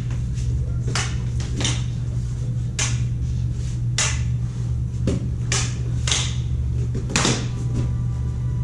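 Combat lightsabers' sound boards humming steadily, with sharp clash effects at uneven intervals, about one a second, as the blades strike each other.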